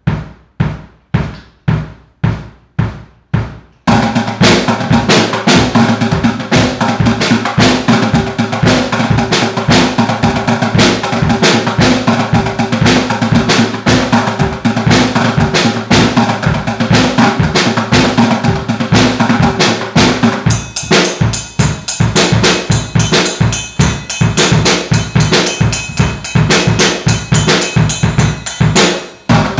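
Improvised drum kit of a bass drum, steel dog bowls and plastic buckets being played. It starts with steady single strikes about two a second, then goes into a fast, busy beat with ringing metal. About twenty seconds in it gets brighter and more clattery.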